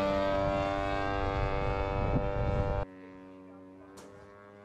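Small propeller-driven target drone's engine buzzing as it flies, a steady pitched drone over wind rumble. About three seconds in it drops abruptly to a quieter, steadier buzz, with one sharp click about a second later.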